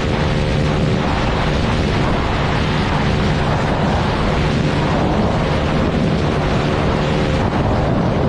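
Motorcycle riding at speed: heavy, steady wind roar on the microphone over a faint engine drone.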